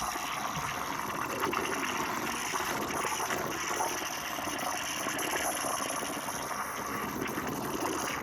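Espresso machine steam wand hissing steadily as it steams and froths milk.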